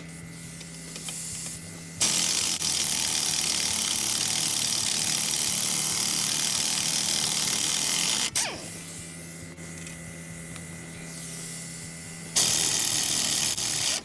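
Pneumatic impact wrench (air gun) spinning out the 19 mm brake caliper carrier bolts, already cracked loose with a breaker bar. One run of about six seconds starts two seconds in and winds down with a falling whine, then a shorter run of about a second and a half comes near the end.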